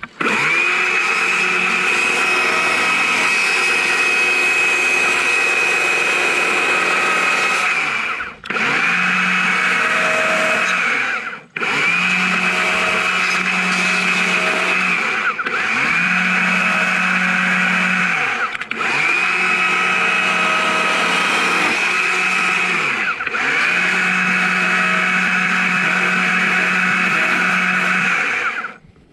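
Chainsaw running at high revs while carving into a log. The revs drop briefly about eight and eleven seconds in, with three quicker dips after that, and the saw stops near the end.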